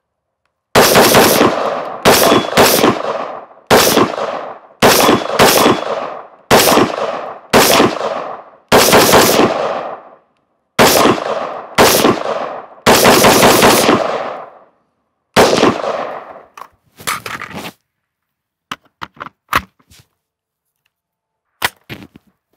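A Daniel Defense MK18 short-barrelled 5.56 AR pistol fires about a dozen rapid strings of several shots each of .223 steel-case ammunition. There are short pauses between the strings, and each shot rings out with an echo. The shooting stops about 18 seconds in, and a few faint clicks follow near the end.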